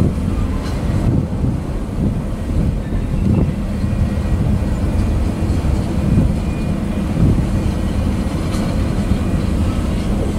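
Freight train cars (tank cars and covered hoppers) rolling past: a steady low rumble of steel wheels on rail, with a few sharp clacks.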